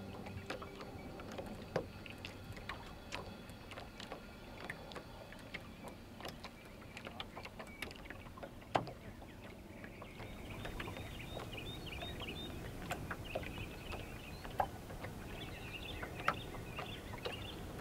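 Water lapping and slapping against the hull of a small boat under sail, in irregular small splashes and knocks. From about halfway through, birds chirp in quick, twittering runs.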